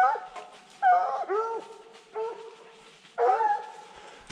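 Hunting hounds baying: four drawn-out bays about a second apart.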